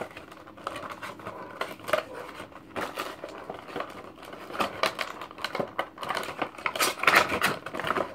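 The boxed Pop vinyl figure and its cardboard and plastic packaging being handled: irregular clicks, taps and rustles.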